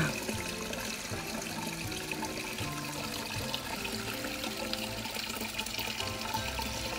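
Water trickling and pouring in a thin stream from a handrail gutter into a clay pot, a steady splashing, with background music of short held notes over it.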